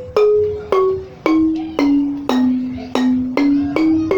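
A wooden xylophone with calabash resonators, struck one key at a time to test its tuning. The notes walk down the scale to the lowest key about halfway through, then start back up, about two notes a second, each ringing briefly.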